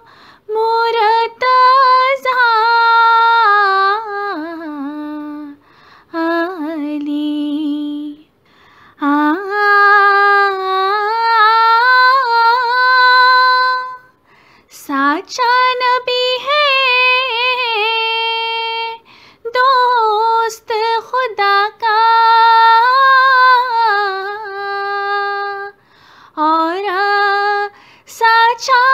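A woman singing a devotional kalam solo and unaccompanied, in long held, melismatic phrases with short breaths between them.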